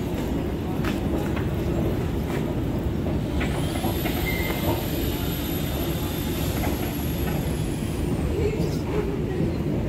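Kolkata East–West Metro train running, a steady low rumble with a few clicks. A thin high whine rises about a third of the way in, holds, and falls away near the end.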